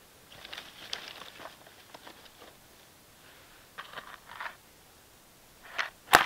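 Scattered rustling and crunching handling noises in short spells, then near the end one sharp, loud click with a brief ringing tail.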